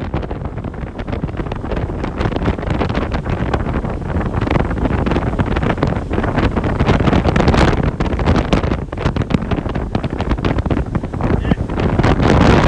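Wind buffeting the microphone: a loud, continuous low rumble with irregular crackles.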